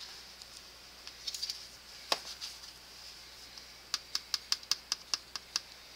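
Light clicks of a small measuring spoon against a plastic tub while spooning out spice: one click about two seconds in, then a quick run of about ten taps near the end.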